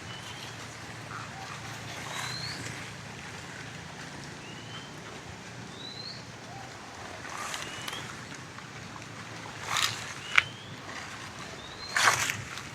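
A bird repeating a short, high, upward-sliding chirp every couple of seconds, with a few crunching footsteps on dry leaves, the loudest near the end. A steady low hum runs underneath.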